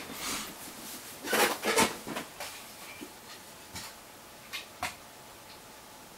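Short, scattered rubbing and clicking handling noises of hands working on a partly reassembled smartphone, a cluster of them about a second in and a few single clicks later.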